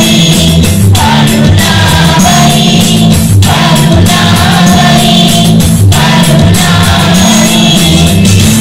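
Children's choir singing a Sinhala Buddhist devotional song (bakthi gee) through a PA, over amplified instrumental backing with sustained bass notes. The singing comes in phrases with short breaths between them.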